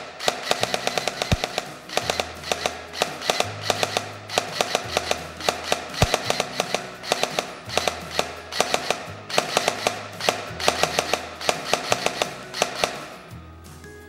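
ARES Amoeba AM-014 airsoft electric rifle firing a series of rapid bursts of different lengths, its gearbox cycling quickly and stopping between bursts; its electronic trigger stops the gears in the correct position each time. Background music with a steady bass line plays underneath.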